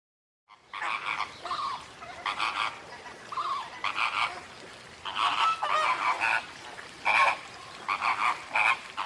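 Animal calls: a long run of short, harsh croaking calls, coming in quick irregular bursts.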